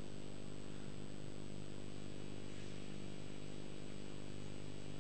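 Steady electrical hum with a faint hiss under it, unchanging throughout: the background tone of the hall's sound system in a pause between spoken lines.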